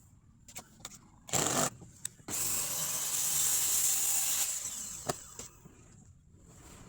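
A power tool working wood: a short burst about a second in, then a run of about two seconds that fades away, with light clicks and knocks of handling around it.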